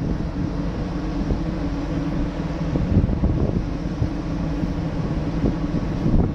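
Wind buffeting the microphone on an open ship's deck, over a steady low hum of the ship's machinery.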